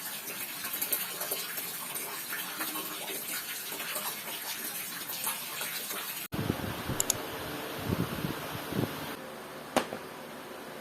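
Water running steadily, as from a tap, for about six seconds. It cuts off abruptly, followed by quieter room sounds with a few soft knocks and one sharp click near the end.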